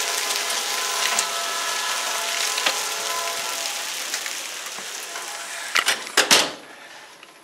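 Heavy rain falling steadily, with faint held tones beneath it and a few scattered ticks. About six seconds in come a few loud knocks and clatters, and the rain sound then drops away to quiet room tone.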